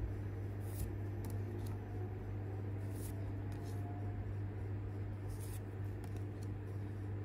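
Pokémon trading cards being flipped through by hand, one card slid from the front of the stack to the back: several short, soft swishes of card on card, over a steady low hum.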